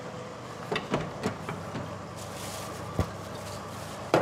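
A door being opened: a few short clicks and knocks, then a loud thud at the very end as it swings, over a steady faint hum of room ambience.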